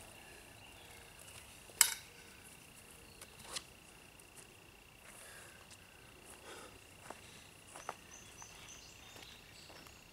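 Crickets trilling steadily in one high tone, with a few short knocks and rustles from a landing net being handled and footsteps on grass. The sharpest knock comes about two seconds in.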